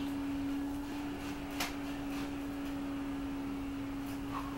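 A steady hum on a single pure tone, with a faint click about one and a half seconds in and another soft one near the end.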